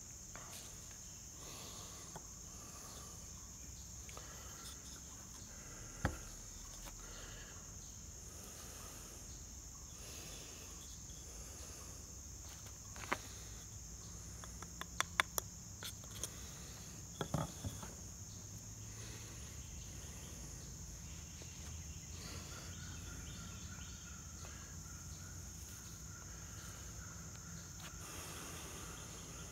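Insects trilling steadily in one continuous high-pitched chorus, with a few faint clicks and taps scattered through the middle.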